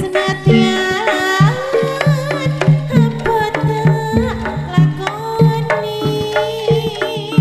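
A woman singing a Javanese langgam, her voice bending and wavering in pitch, over a live gamelan-style jaranan ensemble. A double-headed kendang drum keeps a steady beat of about three strokes a second, and small bronze pot gongs ring along with it.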